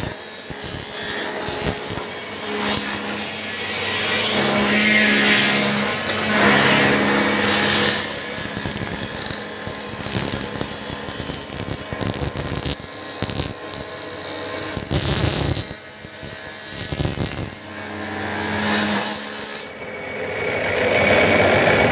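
Wood moulding machine running, its cutter heads shaping a thin wooden strip fed through it into a grooved moulding profile. A steady motor hum under a cutting noise that swells and fades as the strip passes, dipping briefly near the end.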